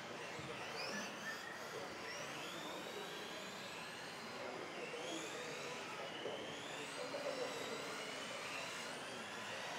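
Several modified-class electric RC off-road buggies racing, their motors whining high and overlapping, each rising and falling in pitch as the cars accelerate and brake around the track.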